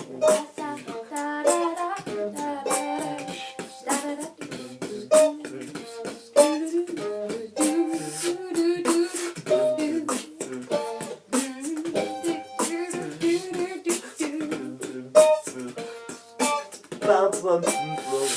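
Beatboxing: quick, sharp percussive clicks and snares with a hummed melody over them, its notes stepping up and down.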